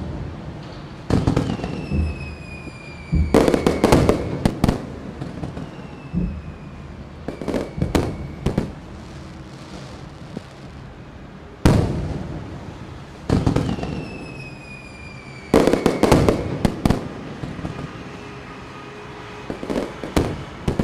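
Aerial fireworks bursting in clusters of sharp bangs and crackles every few seconds, each trailing an echo. A few high whistles fall in pitch between the bursts.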